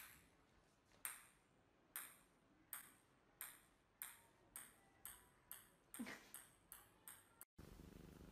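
A series of about a dozen short, ringing pings, each a light tap with a brief ring. They come faster and faster while slowly getting fainter, like something small bouncing to rest, with a short falling squeak about six seconds in.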